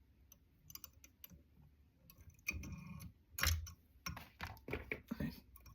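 Light, irregular clicks and taps of a whip finish tool and thread working at the head of a fly in the vise, tying off the thread, with a few louder handling noises in the middle.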